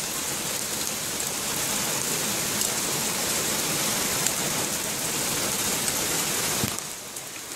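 Heavy rain pouring down, a steady hiss. It dips briefly near the end.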